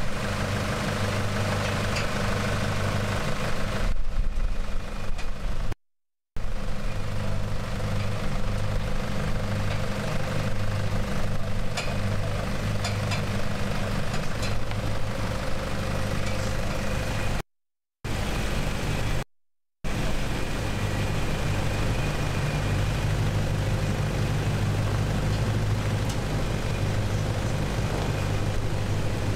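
Toyota LandCruiser 200 Series petrol V8 running steadily at low revs while crawling over a diagonal cross-axle dirt obstacle. The sound cuts out briefly three times.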